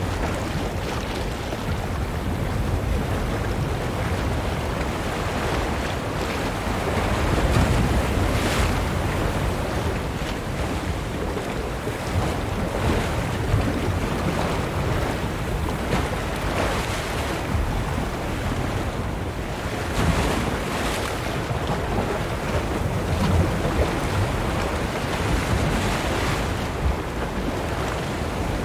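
Ocean surf washing onto a beach in a continuous hiss, with a soft surge of a breaking wave every few seconds. Wind rumbles on the microphone underneath.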